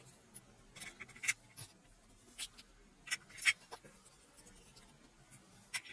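Light clicks and taps of plastic toy-train parts being handled as Plarail wheelsets and the underframe are fitted back onto the car body. A handful of short clicks are spread through otherwise quiet handling, the sharpest about three and a half seconds in.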